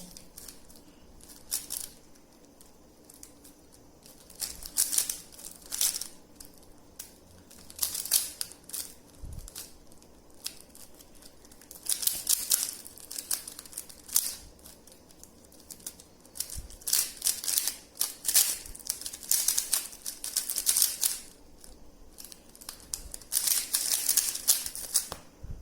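Rubik's cube being turned rapidly during a speedsolve: the plastic layers click and rattle in fast runs of turns, with short pauses between runs.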